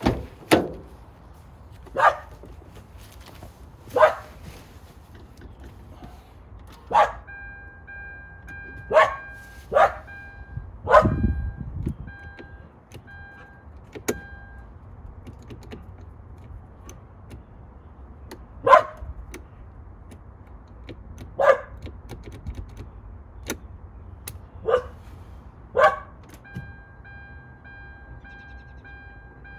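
A dog barking: single barks a second or more apart, about a dozen in all. A repeating electronic beep pulses in the middle and starts again near the end.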